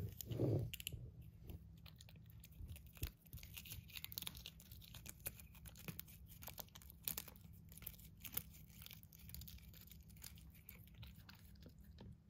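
Ragdoll cat licking and chewing a lickable paste treat from a squeezed plastic tube: a run of quick, irregular wet clicks and smacks, with light crinkling of the packet. A brief muffled bump sounds about half a second in.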